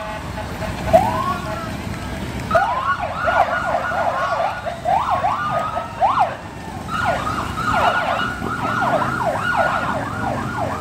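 Police vehicle sirens: a single rising wail, then from about two and a half seconds in a rapid yelp sweeping up and down several times a second, pausing briefly near the middle and starting again.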